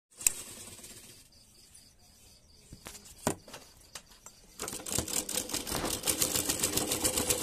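Sewing machine stitching fabric: a few separate clicks at first, then from about four and a half seconds in the machine runs with a fast, even clatter of stitches over a steady hum.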